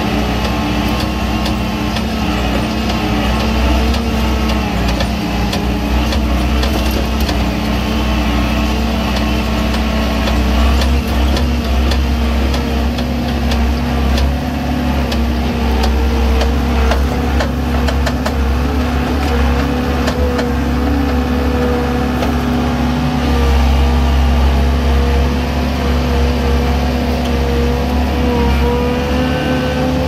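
Skid steer engine running steadily, heard from the operator's seat in the cab, with scattered clicks and rattles from the machine as it works.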